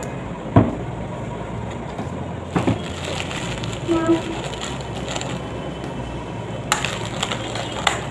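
A thin plastic snack packet crinkling and crackling as it is handled and pulled open, heaviest near the end, with a sharp knock about half a second in.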